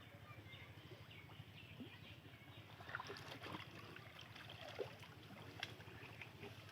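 Faint sloshing of shallow water with a few small splashes, and birds chirping faintly in the background.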